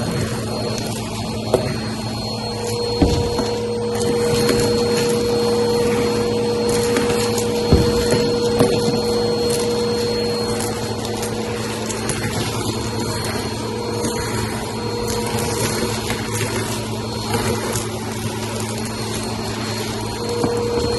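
Vacuum cleaner running steadily on carpet, a motor hum with a high whine. It knocks sharply twice, about three and eight seconds in, with scattered crackling from debris being picked up.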